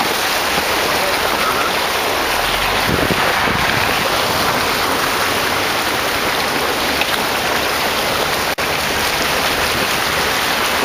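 Steady rushing and splashing of creek water churned up by Jeep tyres driving through a shallow, rocky stream bed, with a momentary dropout about eight and a half seconds in.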